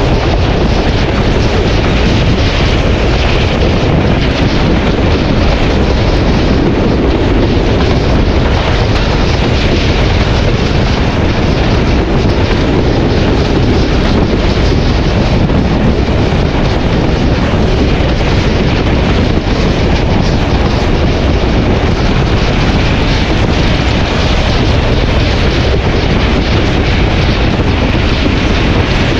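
Hitachi PHA-20 diesel locomotive running loud and steady, with wind rushing over the microphone.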